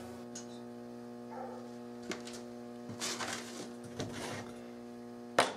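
Scattered light knocks and rustles of things being handled on a plywood workbench, with one sharp knock near the end, over a steady electrical hum.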